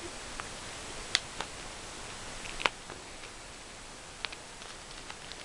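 A few sharp clicks and light ticks from handling a CD-DVD set's packaging, scattered over a faint steady hiss.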